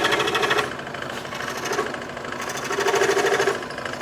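Scroll saw running, its blade chattering in rapid, even strokes as it nibbles small chips off a wooden corner to round it. Louder at the very start and again about three seconds in, softer between.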